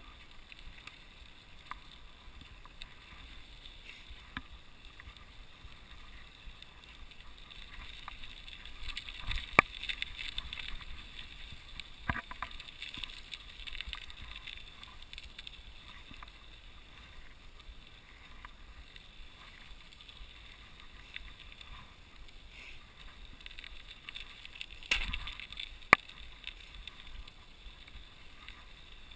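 Mountain bike tyres rolling through wet, slushy snow on a paved road: a steady hiss of slush and spray. Now and then a sharp knock or rattle from the bike on a bump, most plainly about ten seconds in and near the end.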